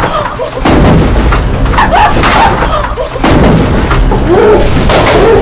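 Loud, overloaded banging and rumbling in a van's metal cargo area as people, a folding chair and plates of food are thrown against the walls while it drives, with yelling mixed in.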